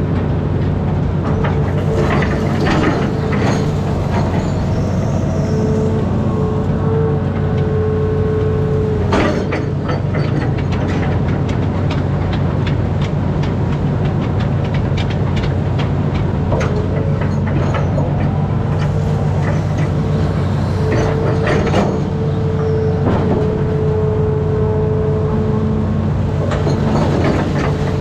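Amphibious excavator's diesel engine running steadily, with a hydraulic whine that comes in for several seconds at a time as the boom and bucket work, and scattered clanks and knocks from the bucket.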